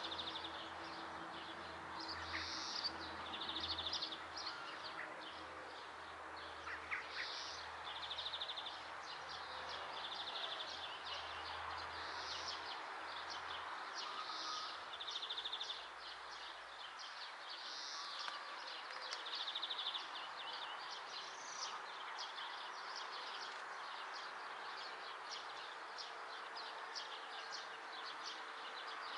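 Songbirds singing: short, high trilled phrases every second or two, with quick high chips in the second half, over a steady background hiss.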